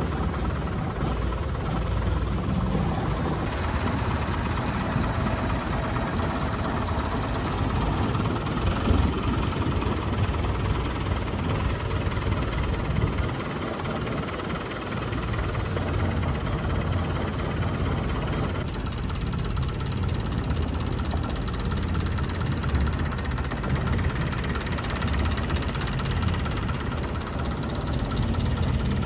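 Longtail boat's engine running steadily while the boat is under way, a loud, rough low drone.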